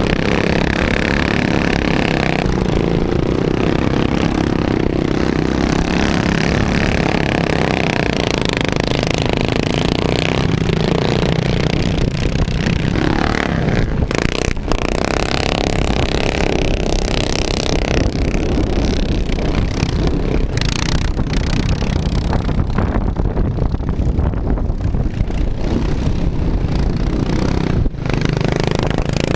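Racing ride-on lawn mower's small petrol engine running hard, heard from on board the mower, its pitch shifting as the throttle is worked.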